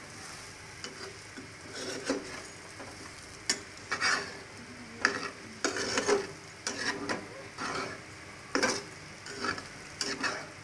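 Spatula stirring and scraping cubes of yam around a frying pan in repeated, uneven strokes, over a light sizzle of frying in a little oil.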